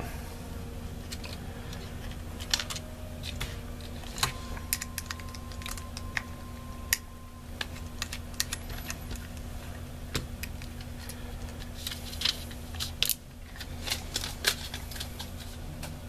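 Scattered small clicks and taps of a screwdriver working on a hard drive's mounting bracket as its two screws are taken out, with the drive and bracket handled, over a steady low hum.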